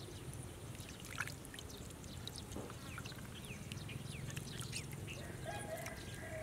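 Water dripping and trickling off hands and snail shells as the snails are lifted out of a shallow bamboo basket of water, with many small clicks of the shells knocking together.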